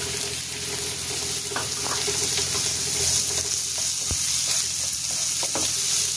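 Chopped onions and garlic sizzling in hot oil in a non-stick frying pan, stirred and scraped around with a wooden spatula, with a few light knocks of the spatula against the pan.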